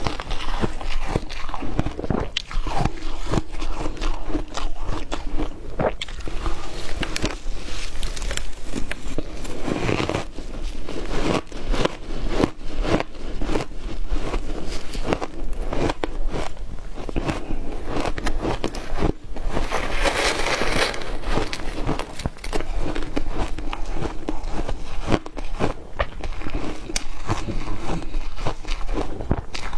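Ice being bitten and crunched between the teeth, a steady run of crisp cracks and chewing.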